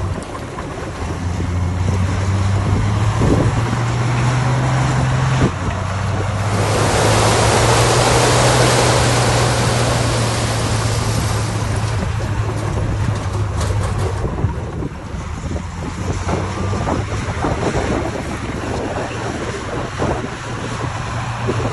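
Diesel engine of heavy earthmoving machinery running steadily with a low hum, joined by a loud rushing noise for about five seconds in the middle.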